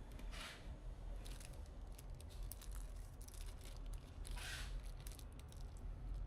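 Hands handling computer parts and packaging: scattered small clicks and ticks, with two brief rustles, about half a second in and again a little past the middle, over a low steady hum.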